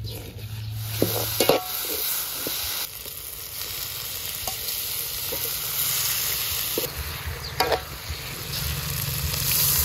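Chillies, garlic, aromatics and prawns sizzling in hot oil in an aluminium wok, with a steady hiss. They are stirred with a metal spatula that scrapes and clinks against the pan a few times, most sharply about a second and a half in and again near the end.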